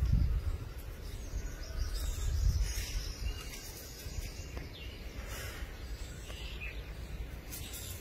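Outdoor ambience with birds chirping now and then. A low rumble is loudest at the very start and dies down within the first second.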